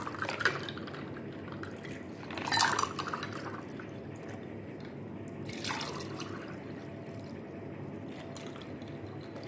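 Shikanji (lemon drink) being poured and splashing into glass tumblers in a few short bursts, the loudest about two and a half seconds in, over a steady low background hum.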